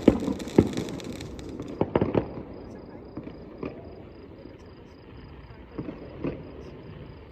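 Consumer fireworks going off: a quick run of bangs and crackling in the first two seconds, then scattered single pops that thin out.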